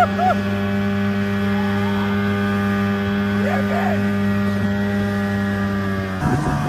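Tiller outboard motor running steadily at wide-open throttle, pushing the skiff on plane, holding one even pitch; the sound changes abruptly about six seconds in.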